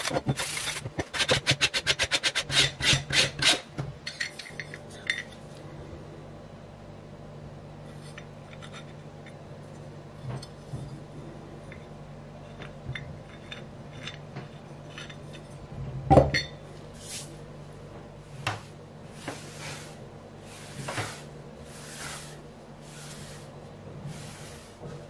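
A block rubbing the bare metal cover of a GEC telephone bell set: a quick run of sanding strokes, about five a second, for the first few seconds. Then quieter handling with small clicks, a sharp knock about sixteen seconds in, and slower, fainter scraping strokes, about one a second, near the end.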